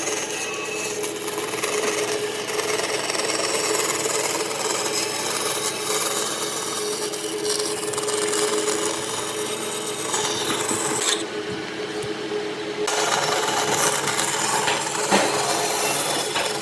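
Power tool abrading hardwood: a steady rough sanding noise over a constant motor hum. The noise drops away for about a second and a half about two-thirds of the way through while the motor keeps running, then resumes.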